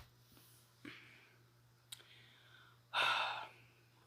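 A few faint mouth clicks, then one breathy sigh about three seconds in, loud and close to the microphone.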